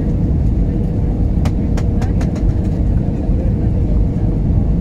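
Steady cabin noise of an Airbus A320 descending on approach, with its engines and the rush of air over the extended flaps heard from a window seat. A faint steady hum sits under it, and a few light clicks come between about a second and a half and two and a half seconds in.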